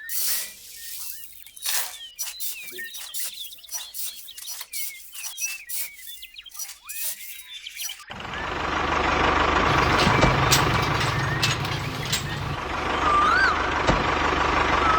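A run of light clicks and knocks with short chirps, then about halfway through it switches suddenly to a steady, louder truck-like engine running with a hiss. There are two short squeaks near the end.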